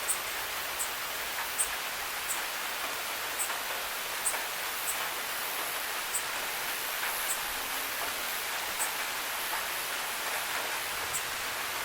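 Steady rain hiss, with single close drops ticking sharply at irregular intervals, about one a second.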